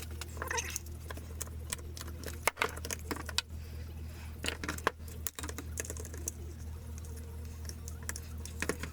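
Quick-grip squeeze clamps being ratcheted tight onto glued knife handle scales: a run of irregular sharp clicks and rattles, over a steady low hum.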